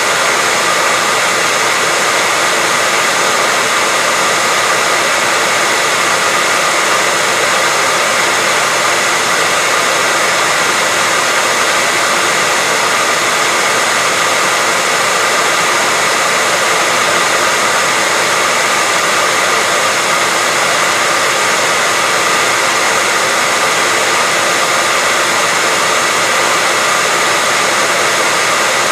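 Hair dryer running steadily: a constant loud rush of air with a steady whine from the motor and fan.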